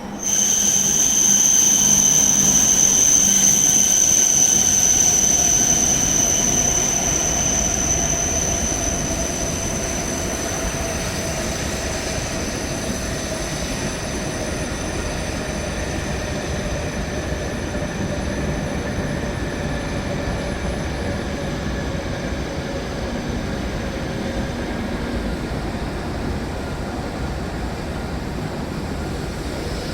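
Hokuriku Shinkansen train running with a high whine and lower tones that slowly fall in pitch, over a steady rumble. It starts suddenly, is loudest in the first few seconds, then eases to a steady level.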